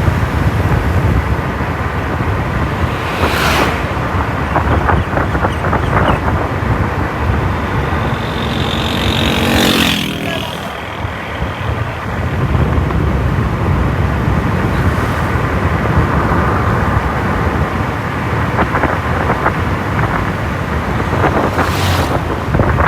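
Wind buffeting the microphone over road traffic, with a few short gusts. A passing vehicle briefly stands out about eight to ten seconds in.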